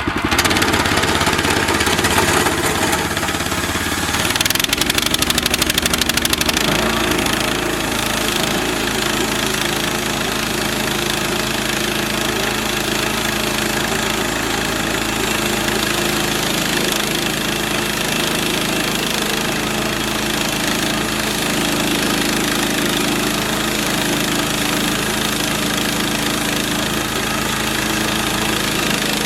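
Gas engine of a Central Machinery band sawmill running, picking up speed about four to six seconds in and then holding a steady pitch as the band blade saws through very hard, dry mesquite.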